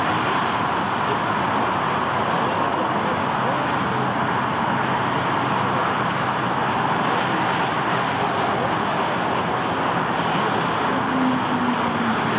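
Jet engine noise from an Airbus A330-900neo's Rolls-Royce Trent 7000 engines as the airliner rolls out on the runway just after touchdown, a steady rushing noise that holds an even level throughout.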